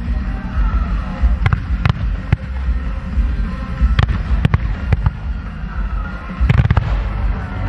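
Fireworks fired in fan-shaped volleys of rising comets: sharp bangs come every half second to a second, with a quick cluster of several bangs near the end, over music.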